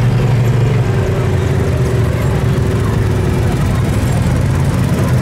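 A large vehicle's engine running steadily at low revs, a continuous low hum.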